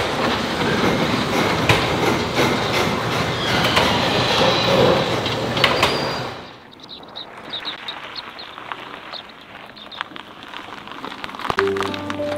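Overhead sectional garage door rattling and rumbling along its steel tracks as it rolls up, stopping about six seconds in; after that only faint scattered clicks.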